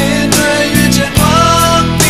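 Music: a song with sustained chords and a drum beat.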